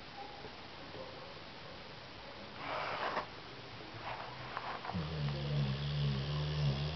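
A sleeping Cane Corso snoring. A breathy, noisy breath comes about three seconds in, with a few soft snuffles after it. Near the end comes a low, steady snore lasting about two seconds.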